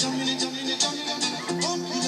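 Live busking music: a guitar played through a small amplified speaker, over a steady beat.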